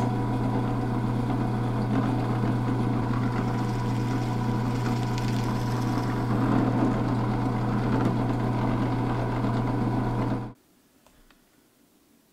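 Benchtop drill press running steadily with a low motor hum as its bit bores a cavity into a carved wooden lure body. The sound cuts off abruptly about ten seconds in.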